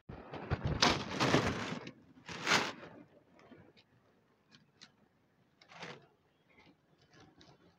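Dry cat kibble rattling into clear plastic food trays in two pours during the first three seconds, then a scatter of faint crisp clicks as cats crunch the kibble.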